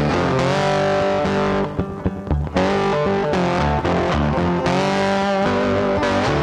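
Background music led by electric guitar, with a short drop in level about two seconds in.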